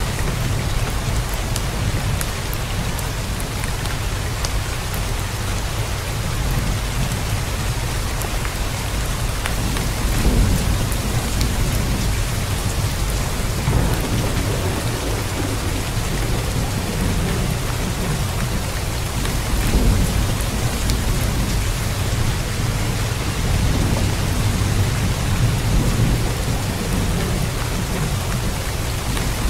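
Steady heavy rain hissing, with low rumbles of distant thunder that swell a few times.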